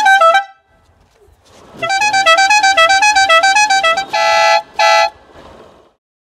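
Three-trumpet electric air horn on a motorcycle, its compressor-fed trumpets sounding one after another in a quick repeating run of notes that stops about half a second in and starts again about two seconds in. Near the end it gives two short blasts with the trumpets sounding together as a train-horn chord.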